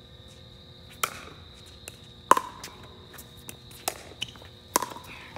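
Pickleball paddles striking a plastic pickleball in a rally: sharp pocks roughly a second apart, the loudest about two seconds in, some with a brief hollow ring. A faint steady high whine sits underneath.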